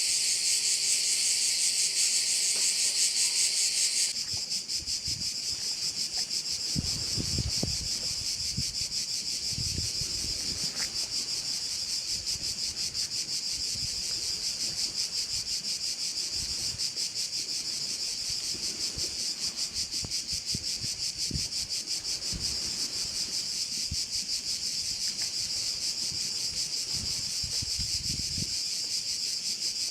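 Chorus of Mediterranean cicadas (cvrčak) giving a dense, fast-pulsing high buzz. About four seconds in the loudest, nearest singer cuts out and the rest carry on steadily.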